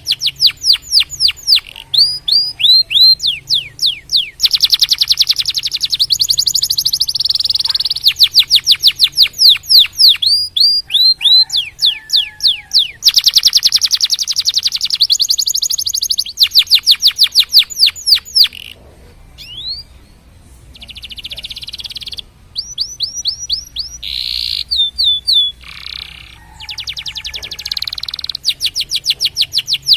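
Domestic canary singing: long, fast trills of short falling notes, many a second, with a few held whistled notes and a brief quieter pause about two-thirds of the way through.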